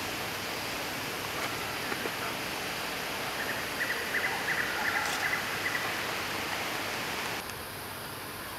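Steady forest background hiss. About three and a half seconds in comes a rapid rattling animal call of many quick pulses, lasting about two seconds. Near the end the background hiss drops off abruptly.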